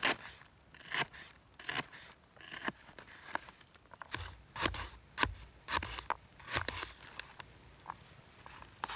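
Knife chopping vegetables on a slab of birch bark used as a chopping board: irregular crisp cuts and knocks, about one or two a second.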